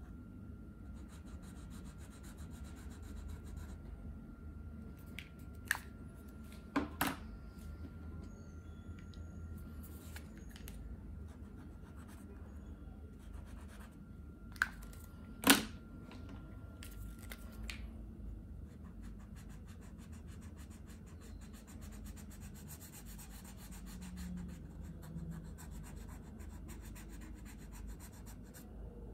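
Posca paint marker tip rubbing and scratching on paper as areas are coloured in. A few sharp clicks of plastic markers and caps being handled break in, the loudest about halfway through.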